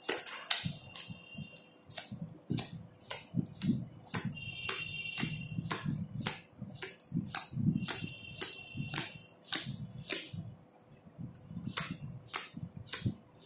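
A deck of playing cards being thumbed through one card at a time from hand to hand, each card giving a short crisp snap, about two or three a second, with a brief pause a little after ten seconds.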